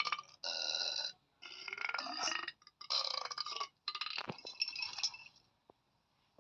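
An animated cartoon creature burping in a string of about five separate burps over some five seconds, after overeating food that tasted terrible.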